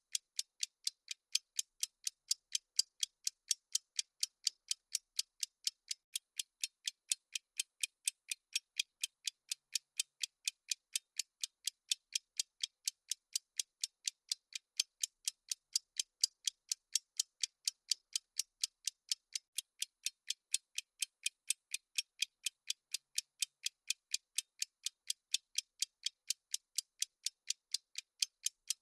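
Clock-ticking sound effect of a countdown timer: evenly spaced sharp ticks, about two a second.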